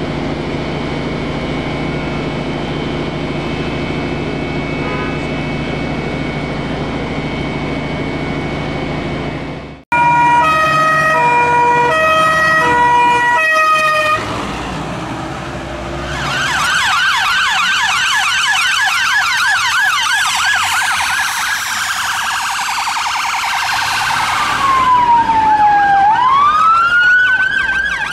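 A steady low engine hum for about ten seconds, then emergency-vehicle sirens. First a two-note hi-lo tone for a few seconds, then a fast yelping wail, and near the end a slow wail that falls and rises again.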